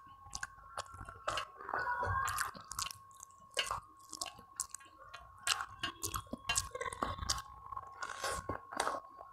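Eating by hand close to the microphone: fingers mixing rice and curry on a steel plate, and chewing with frequent irregular wet clicks and smacks of the mouth.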